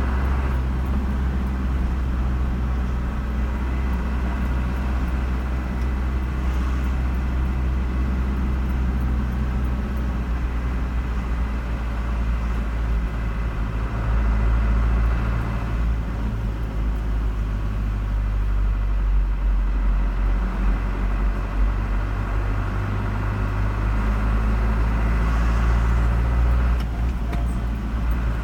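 A car driving along a road: a steady, heavy low rumble of engine and tyre noise that barely changes.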